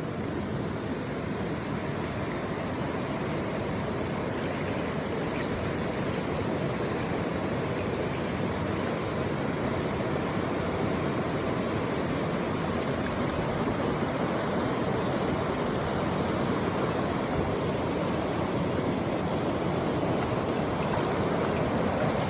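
River water running, a steady rushing that grows slightly louder toward the end.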